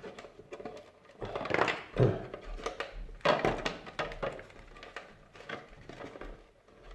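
Parts of a Moulinex grinder being handled and fitted during reassembly: a run of knocks and clicks, the loudest about a second in, two seconds in and just past three seconds.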